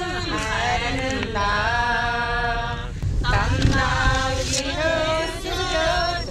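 A voice singing long, drawn-out notes in a chant-like melody, sliding between held pitches, over a steady low rumble of a car driving.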